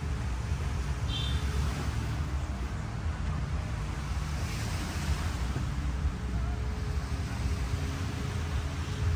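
Waves breaking on a beach, with wind buffeting the microphone in a steady low rumble. A brief high chirp comes about a second in.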